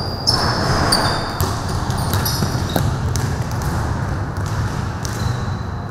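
Basketballs bouncing on a gym floor in scattered knocks, with short high squeaks of sneakers and a steady background din of players on the court.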